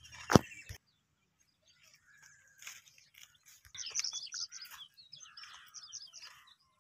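Small birds chirping in quick runs of high notes, busiest around the middle. A single sharp knock just after the start is the loudest sound.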